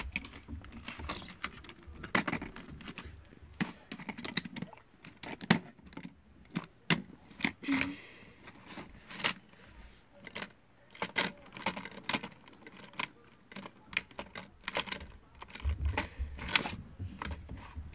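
Irregular clicks and clacks of a hard plastic Hot Wheels playset and a die-cast toy car being handled, parts knocking and snapping against each other.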